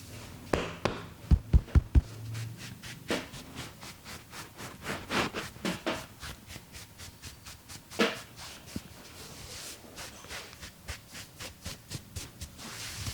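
Hands at work in an Indian head massage: a run of sharp, irregular slaps and taps, with four heavy thumps in quick succession about a second and a half in.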